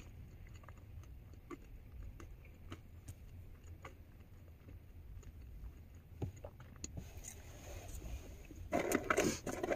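Steady low rumble inside a car, with faint scattered clicks and small handling noises from someone eating fries with a plastic fork. A louder burst of noise lasts about a second near the end.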